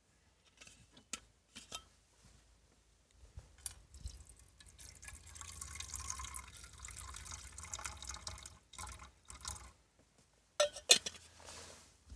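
Water poured from a bottle into a small cooking pot, a steady trickle that fills the pot for several seconds. A few light handling clicks come before it, and two sharp clicks come near the end, which are the loudest sounds.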